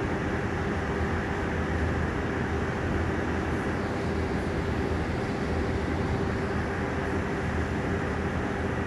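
Loud, continuous mechanical drone with a steady hum and a low rumble underneath, unchanging throughout: the nonstop machinery noise being complained about.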